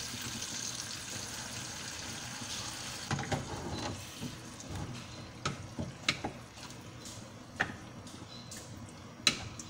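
Water poured from a sauce pouch into a frying pan of simmering tomato sauce, a steady pouring rush for about the first three seconds. Then a spatula stirs the sauce, with scattered knocks and taps against the pan.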